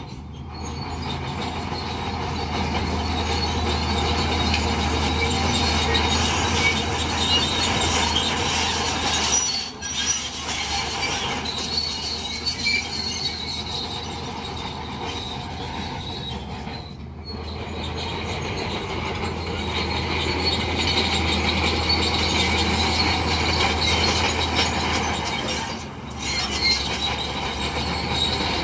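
Crawler bulldozer working: its diesel engine runs steadily under load over the squeal and clatter of its steel tracks.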